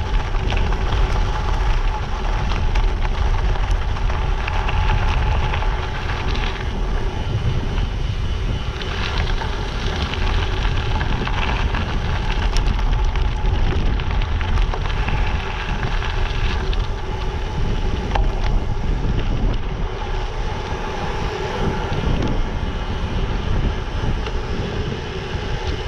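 Steady wind noise buffeting a GoPro's microphone while a gravel bike rolls along, over the rumble of its tyres on a gravel path.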